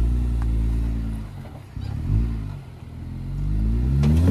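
Jeep Wrangler JL engine revving in throttle bursts as it crawls up a rock ledge. The revs drop off mid-way, blip briefly, then climb steadily near the end as the front wheel lifts.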